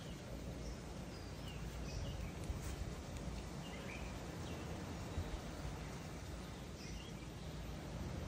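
Steady low background noise with a few faint, scattered bird chirps.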